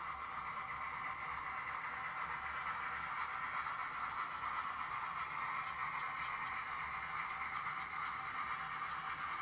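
HO scale model train running on the layout, a steady whirring hiss that grows slightly louder over the first few seconds as it approaches.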